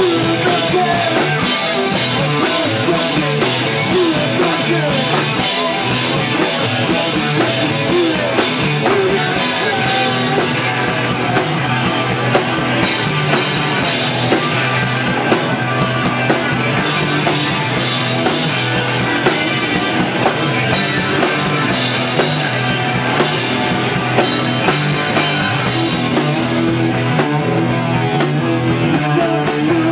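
A rock band playing live at full volume: electric guitars, bass guitar and a drum kit, with steady drum hits under the guitars.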